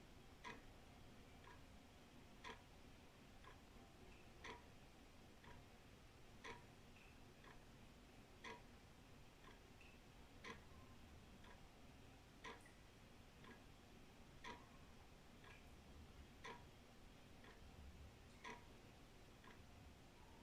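Old wall clock ticking faintly and steadily, about once a second, with every other beat louder in a tick-tock pattern. A faint low rumble runs beneath.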